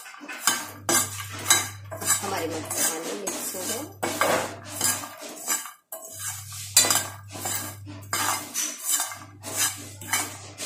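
Steel spoon scraping and clinking against a non-stick frying pan in quick repeated strokes while stirring roasted makhana (fox nuts), the light puffed seeds rattling across the pan.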